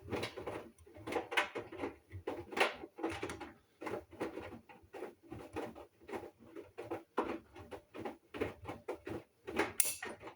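Hoover washing machine drum tumbling a load on a Mixed 40 wash with the extra-water option, the laundry and water sloshing in uneven surges one or two times a second.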